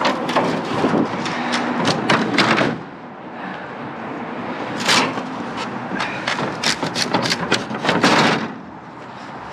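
A run of knocks, thumps and clatter from objects being handled and set down, bunched into two spells with a quieter stretch in between.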